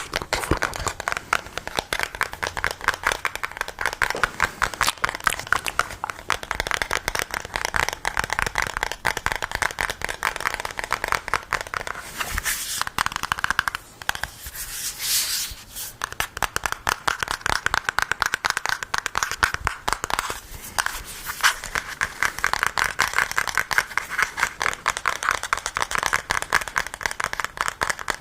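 Rapid, dense ASMR tapping and scratching close to the microphone, many small clicks in quick succession. It eases briefly about halfway through, with a short hiss, then picks up again.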